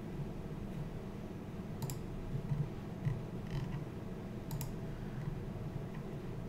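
Computer mouse clicking, with quick double-clicks about two seconds and four and a half seconds in, over a steady low hum.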